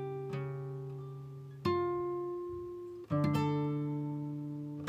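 Background music: acoustic guitar playing slow chords, each struck and left to ring and fade, with new chords about one and a half seconds in and again about three seconds in.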